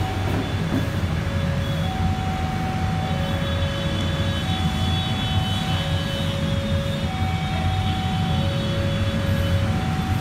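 KRL electric commuter train running, a steady heavy low rumble. Over it two steady notes, one higher and one lower, take turns about every second.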